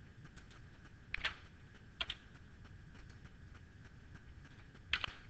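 Computer keyboard keystrokes: a few sparse key clicks in three short pairs, about a second in, around two seconds in and near the end, over a faint steady hum.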